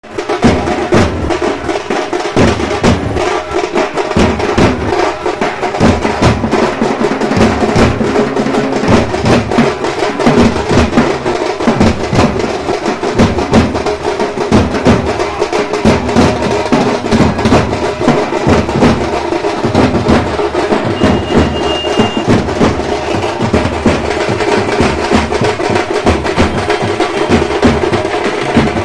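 Procession drums beaten with sticks, loud and continuous, in a fast, driving dance rhythm.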